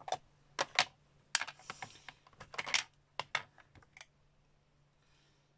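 Sharp plastic clicks and taps, about a dozen in quick irregular succession over the first four seconds, from a clear stamp on an acrylic block and a plastic ink pad case being handled as the stamp is inked.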